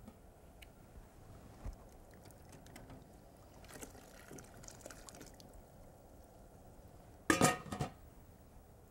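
A hot glass canning jar lifted out of a water-bath canner with a jar lifter, water trickling and dripping off it, then a loud clink of glass about seven seconds in as the jar is set down.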